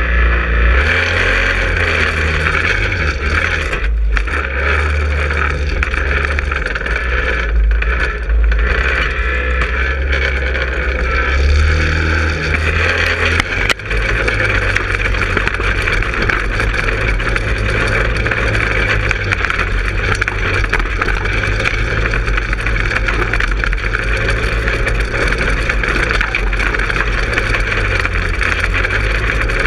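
Go-kart's 150cc engine running, changing in level through the first part. About 14 seconds in the sound breaks off abruptly and picks up again, then runs steadily as the kart drives over leaf-covered forest ground.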